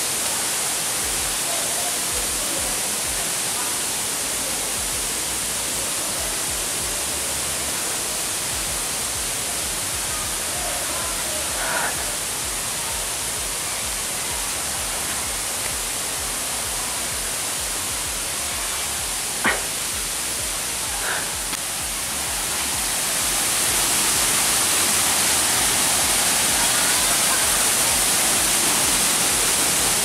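Steady rushing of water from a nearby jungle stream and waterfall, growing louder about three-quarters of the way through. One sharp click a little past the middle.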